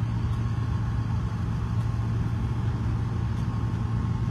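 Tractor and truck engines idling, a steady low hum that does not change.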